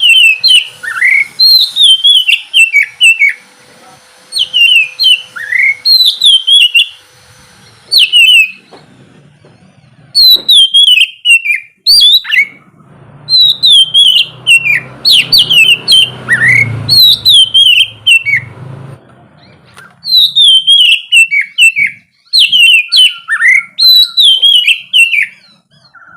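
Oriental magpie-robin (kacer) singing loud, clear whistled phrases of quick falling notes, repeated in bursts with short pauses between them.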